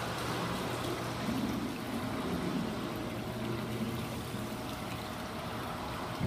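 Water trickling and circulating in an aquarium touch tank, over a steady low hum.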